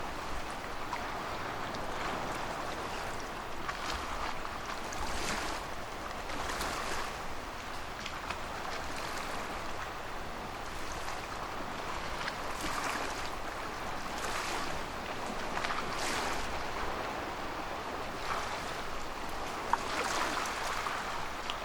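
Small waves washing in on a shoreline, swelling and falling back every couple of seconds, with one sharp tick near the end.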